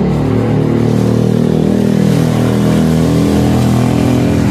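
A motor vehicle's engine running close by, a steady deep hum.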